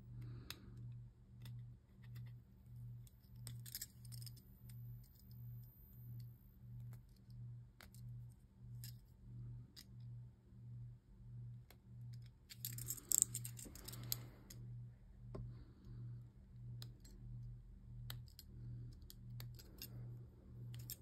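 Faint clicks and snips of small Beyblade plastic parts being trimmed and handled with a box knife and hobby snips. A short burst of scratchy scraping comes about two-thirds of the way through. A low hum pulsing about twice a second runs underneath.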